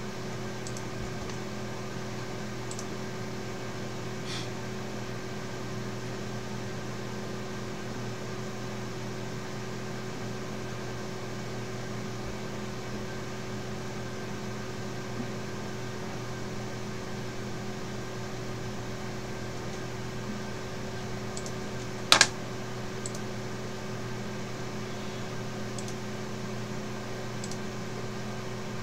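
Steady hum of running computer equipment with a few steady tones in it, and one sharp click about three-quarters of the way through.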